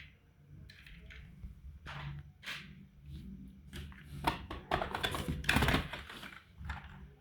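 Toy cars being handled: light clicking and clattering of small hard pieces, busiest and loudest about four to six seconds in.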